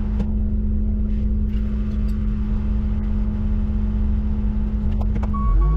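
Engine of a boom-equipped loader machine running under load with a steady low whine while it lifts a wing plow. The whine drops away near the end, and a high tone comes in.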